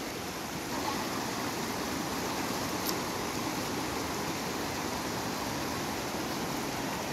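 Rushing water of a shallow, rocky mountain river tumbling over boulders and stones: a steady, even rush.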